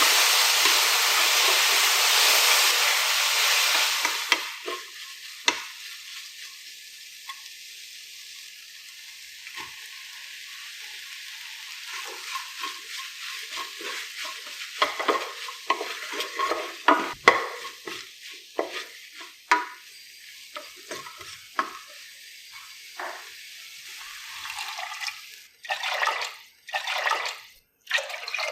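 Food sizzling loudly in a frying pan for about four seconds, then dropping to a quieter sizzle under a spoon stirring and scraping the pan with many small knocks. Near the end come short, louder splashy bursts.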